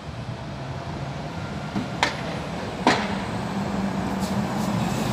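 Regional coach pulling in, its engine hum steadily growing louder as it draws near. Two sharp clicks sound a bit under a second apart, about two seconds in.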